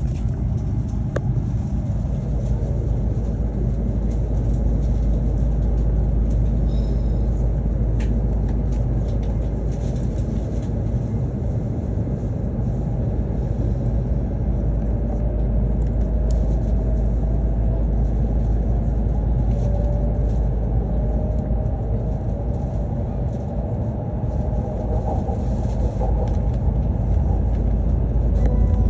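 Hokuriku Shinkansen train heard from inside the passenger cabin: a steady low running rumble as it pulls away from the station. A faint motor whine climbs slowly in pitch through the second half as the train gathers speed.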